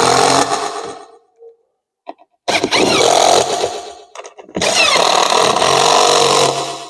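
Cordless drill driving the screws that fix a chair's metal legs to its seat, running in three spells of one and a half to two seconds with short pauses between.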